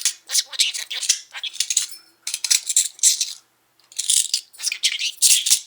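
Budgerigar chattering and warbling in quick, high-pitched runs of chirps and clicks, with short pauses between phrases.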